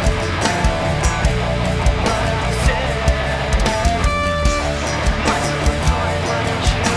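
Rock band playing live: guitars over bass and regular drum hits, with a single held note standing out about four seconds in.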